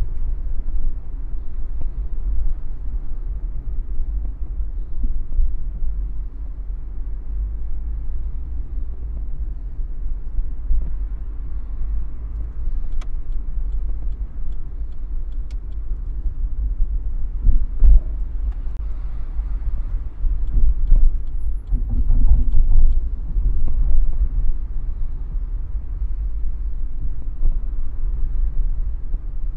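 Car driving on city roads: a steady low rumble of the engine and tyres, swelling louder a few times.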